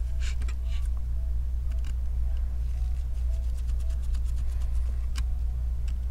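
Light clicks and ticks of a small screwdriver and metal parts as screws and the small battery-connector bracket are taken out of an opened iPhone 7 Plus, over a steady low hum. The clicks come in small clusters, with a sharper one about five seconds in.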